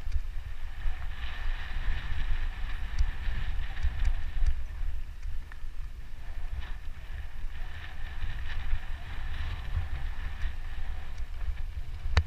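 Wind buffeting the microphone of a mountain bike riding down a dirt trail, a heavy gusty rumble, with tyre noise and scattered clicks and rattles from the bike over bumps.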